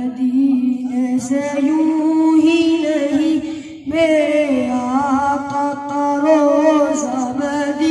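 A boy singing a naat, an Urdu devotional poem in praise of the Prophet, solo into a hand-held microphone, with long held notes that waver and ornament. There is a brief break for breath just before halfway.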